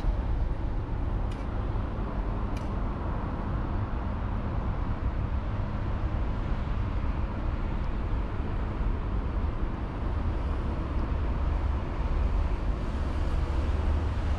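Steady low rumble of city road traffic, with two faint clicks about one and two and a half seconds in.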